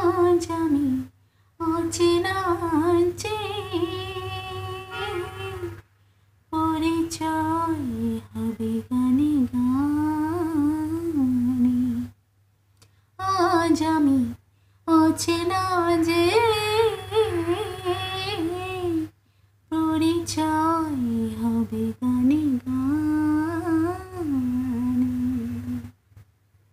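A woman humming a Bengali song melody unaccompanied, in flowing phrases broken by brief complete silences.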